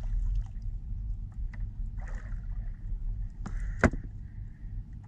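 Water lapping and sloshing against a small outrigger fishing boat over a steady low rumble, with faint handling ticks. A single sharp knock comes near the end.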